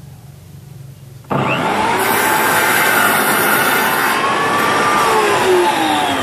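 NRT-PRO compound mitre saw switched on about a second in, its motor running up to speed with a steady whine as the blade is brought down through a wooden strip. Near the end the whine falls in pitch as the motor winds down after the trigger is released.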